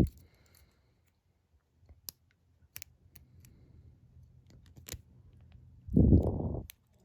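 Lock pick working the pin stack of a brass Master Lock 140 padlock: scattered light clicks and ticks as the pick lifts the pins under tension. Near the end a short, loud, low rumble breaks in.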